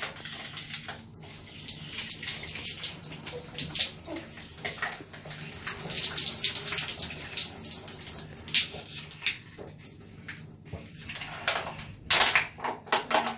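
Water squeezed fast out of a plastic water bottle, splashing and spilling as it is gulped down, with the thin plastic crackling in the hand. There are a few louder splashy bursts near the end.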